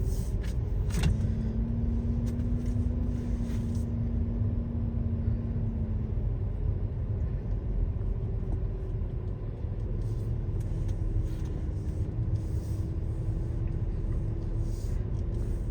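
Car driving at low speed, heard from inside the cabin: a steady low rumble of engine and road noise with a faint hum that drifts slightly in pitch.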